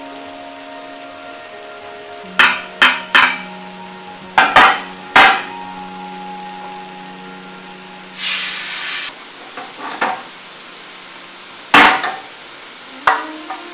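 Metal roasting tray and utensils clanking sharply on the stove, a series of separate knocks. About eight seconds in, a brief burst of sizzling as water hits the hot tray to deglaze the roasting juices, then a few more clanks. Soft background music underneath.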